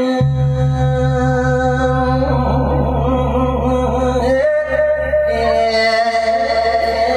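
Music: a man's chanted singing over a steady droning accompaniment with a low pulsing bass. The low drone drops out briefly about four and a half seconds in.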